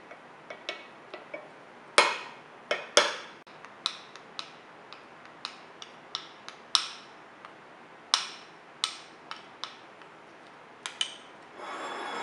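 Metal teaspoon stirring a thick mixture in a ceramic bowl, clinking against the bowl's side at irregular intervals, the loudest two clinks about two and three seconds in. Near the end a steady scraping rub sets in as the bowl is moved.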